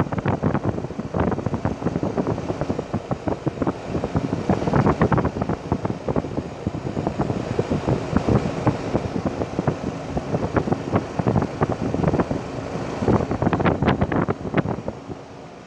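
2012 Rheem 4-ton heat pump running in cooling mode, its condenser fan and compressor going steadily, with irregular fluttering that eases a little near the end.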